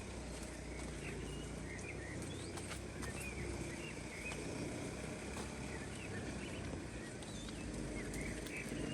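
Small birds chirping, many short calls scattered throughout, over a steady outdoor background hiss.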